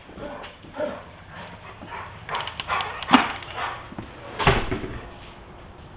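A dog barking a few times, with a sharp click about three seconds in and a thump a second and a half later.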